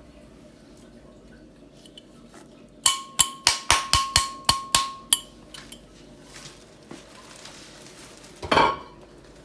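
About nine quick sharp taps on a glass bowl, each with a short ringing tone, knocking the last ground powder out of it. A brief louder scrape follows near the end.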